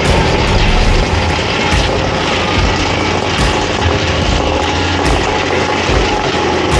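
PTH MicroCrusher Trail stone crusher on a tracked Rapid carrier running steadily, its rotor grinding through stony soil and rocks.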